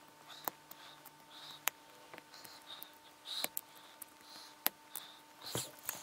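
A small blade scraping and prying at the metal lugs and spring bar of a mesh watch strap, seized by rust, with about five sharp metallic clicks among quieter scratching.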